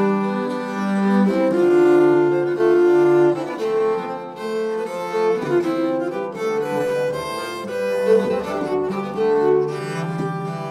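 Background music of bowed strings playing slow, held notes that change every second or two.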